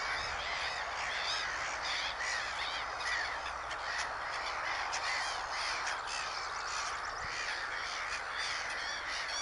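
A dense chorus of many birds calling, short harsh calls overlapping several times a second without a break, over a steady hiss.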